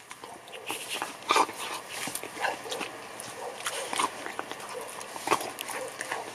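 A dog eating chunks of cooked pork from a stainless steel bowl: irregular wet chewing, smacking and licking, with short clicks of teeth and tongue against the bowl, the loudest about a second in.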